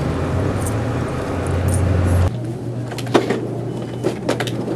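Car idling, heard from inside the cabin as a steady low hum. A little over two seconds in the hum changes abruptly, and a few sharp clicks and knocks follow as things are handled in the car.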